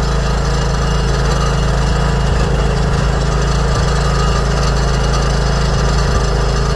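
A 1970s John Deere 212 lawn tractor's single-cylinder Kohler engine running steadily, cold-started on ether starting fluid.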